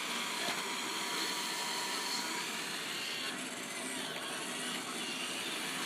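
Roomba robot vacuum running: a steady whirr of its suction motor and brushes, with a faint constant whine.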